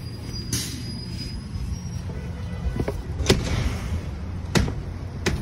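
Glass shop door being pushed open, with a few sharp clicks and knocks from the door and its hardware, the loudest about halfway, over a steady low rumble.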